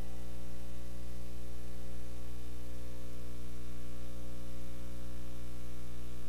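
Steady mains hum under an even hiss of static from a shortwave receiver being tuned through the 40-meter CW band, with no distinct Morse tone standing out.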